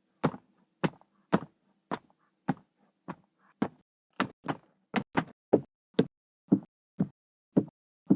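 Foley footsteps: a steady walk of hard, sharp footfalls on a hard floor, about two steps a second, a few landing in quick pairs, growing louder about halfway through.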